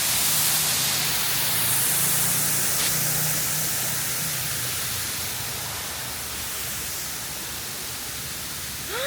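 Steady rushing of an aviary waterfall, a wide even hiss that gradually gets quieter.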